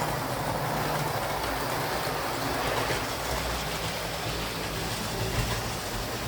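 Hornby OO gauge Battle of Britain class model steam locomotive running along the track under DC power, a steady motor whirr with wheel rumble.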